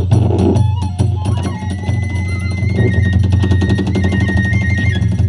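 Hiroshima kagura accompaniment: rapid, steady drumming with clashing strokes under a high melody line that holds long notes and steps in pitch.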